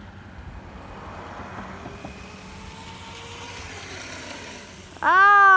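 Faint whine of electric motors from the electric dirt bike and RC car racing, over a steady rush of noise, the whine rising slightly in pitch. About five seconds in, a loud drawn-out shout of a person's voice.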